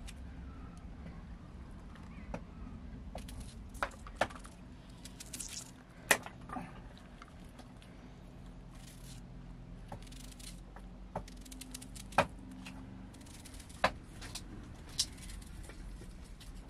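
Onion being sliced by hand with a small knife over a plate: faint crisp cuts and about eight irregular sharp clicks on the plate.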